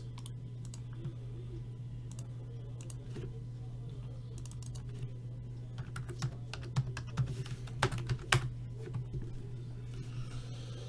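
Computer keyboard typing in scattered taps, busier in the second half, over a steady low hum.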